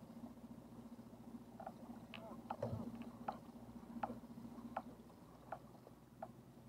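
Small electric trolling motor on a fishing kayak humming steadily, with short squeaky ticks coming roughly every second from about two seconds in.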